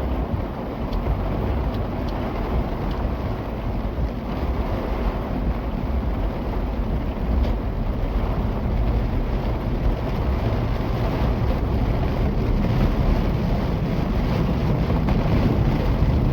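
Car driving on wet roads in a rainstorm, heard from inside: a steady low rumble of tyres and engine under a hiss of rain.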